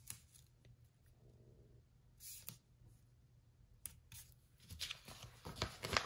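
Stickers being peeled from a paper sticker sheet and pressed onto planner pages: short paper rustles and peeling sounds with small taps, one burst about two seconds in and a busier run near the end, over a faint low hum.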